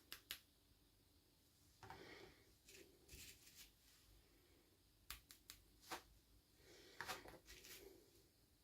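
Faint handling sounds from unboxing small plastic toys: sharp clicks and taps, a few in quick succession about five seconds in, between short rustling scrapes.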